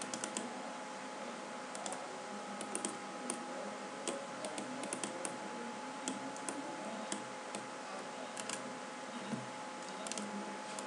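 Scattered clicks of a computer keyboard and mouse being worked, often a few in quick succession, over a steady background hiss with faint steady whining tones.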